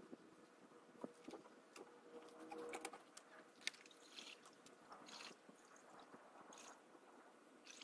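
Faint knocks and rustles of empty plastic bucket feeders being lifted and stacked into a plastic bucket: a few scattered taps with one sharper click a little past halfway.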